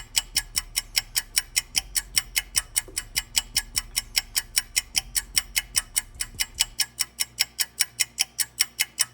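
Rapid, perfectly even ticking like a clock or timer, about five ticks a second, with a faint steady low hum beneath. It stops suddenly near the end.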